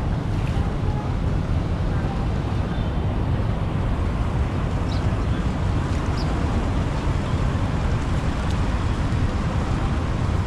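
Floodwater rushing steadily into a street drain, a constant low rumble that stays even throughout.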